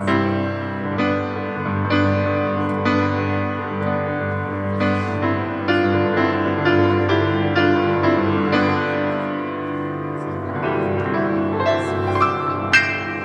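Grand piano played solo: a slow instrumental passage of chords and single notes struck about twice a second, each ringing on, with a softer stretch about two-thirds of the way in.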